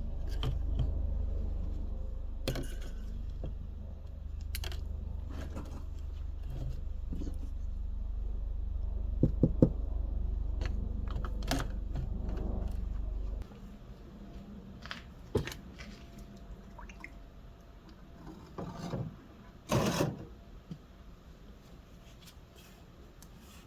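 Carburetor parts and the cleaner basket being handled for an ultrasonic cleaner: scattered light clicks and metal knocks, over a steady low hum that cuts off suddenly about halfway through.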